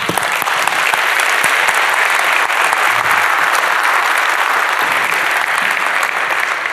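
Audience applauding steadily in a large hall.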